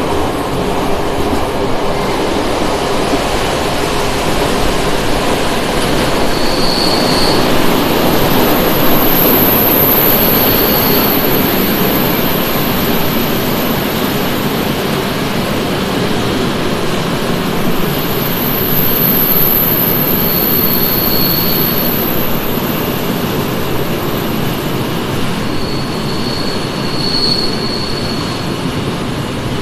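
Passenger train rolling across a steel truss railway viaduct: a steady rumble of wheels on rail, with thin high-pitched wheel squeals coming and going through the crossing.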